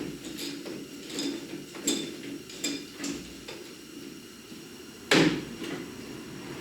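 Metal knocks and clinks from tools and steel parts being worked on a truck's bumper: about five light, ringing taps, then one much louder clank about five seconds in.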